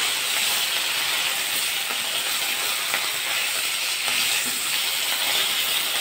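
Parshe fish (Bengal mullet) sizzling as they fry in hot mustard oil in a wok: a steady hiss.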